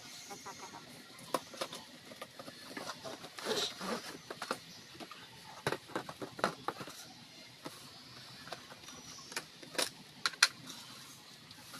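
Cardboard box and clear plastic packaging being handled: scattered clicks, knocks and rustles, with a longer rustle a few seconds in and sharp knocks near the end.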